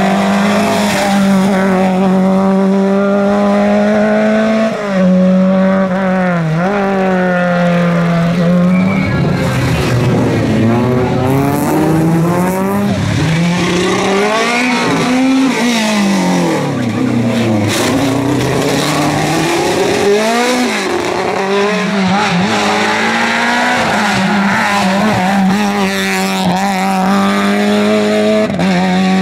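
Rally car engines revving hard, their pitch held high for stretches and elsewhere climbing and dropping sharply as the drivers shift gear and lift for corners.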